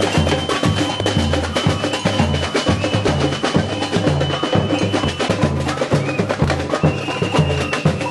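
Drum-led music: a fast, busy percussion rhythm of many sharp strokes over a pulsing bass, with a high held note across the first five seconds that comes back near the end.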